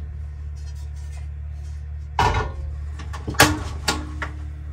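Cast-iron skillet set down on a gas range's metal grates: a scraping clatter about two seconds in, a sharp clank about a second later with a faint ring after it, then a few lighter knocks. A steady low hum runs underneath.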